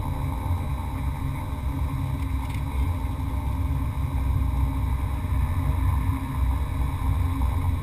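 Beechcraft King Air 100's twin turboprop engines heard from the cockpit as the plane rolls along a snow-covered gravel runway: a steady, heavy low rumble with a constant engine hum on top.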